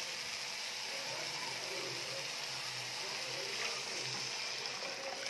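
Water drained from boiled chana dal poured from a steel pot into a kadhai of hot, oil-fried masala: a steady pouring hiss as the liquid sizzles on the hot pan.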